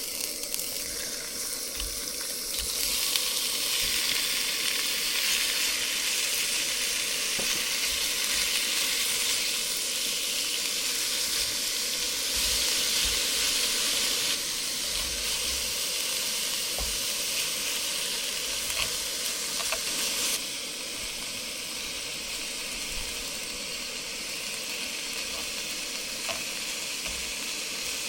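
Food sizzling as it fries in a hot pan, growing louder about three seconds in and easing off about twenty seconds in.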